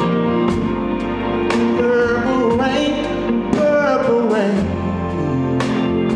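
Live band music: sustained keyboard chords over a drum hit about once a second, with a male voice singing a wavering, sliding melody in the middle.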